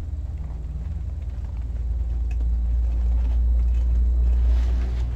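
A low, steady rumble that swells from about two seconds in and eases near the end, with faint crinkles and ticks from the deco mesh and sign being handled.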